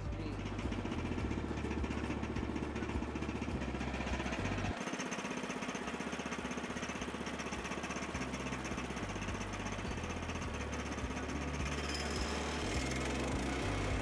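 Woodland Mills HM122 bandsaw mill running steadily, its engine and band blade driven through a pine log as the saw head is pushed along the track. The sound changes about five seconds in.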